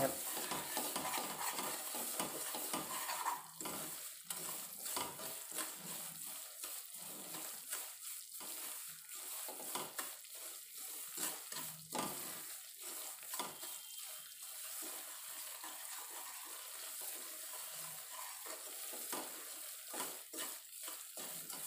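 A spatula stirring and scraping semolina around a stainless steel kadhai in repeated strokes, over a light sizzle of the semolina roasting in ghee. The semolina is turning light brown and the ghee is starting to separate from it.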